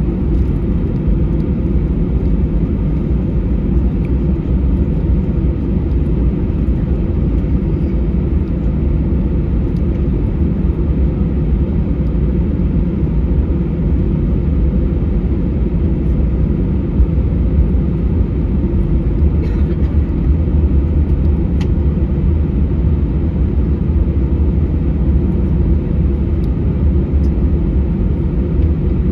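Cabin noise inside an Airbus A320 taxiing after landing: the engines at taxi power and the wheels rolling over the taxiway make a steady low rumble.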